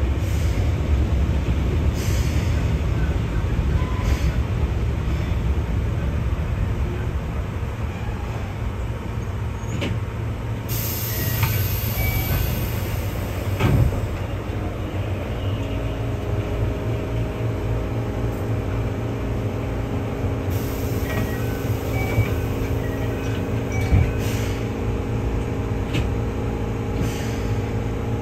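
Keihan 600-series electric railcar running: a steady low rumble of wheels on rail with occasional clunks. A steady hum of several tones sets in about halfway.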